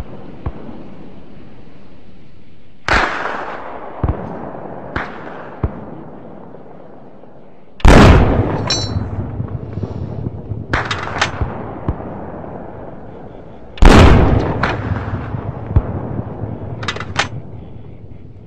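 Gunfire: three heavy shots about three, eight and fourteen seconds in, each followed by a long rolling echo, with several sharper single cracks in between.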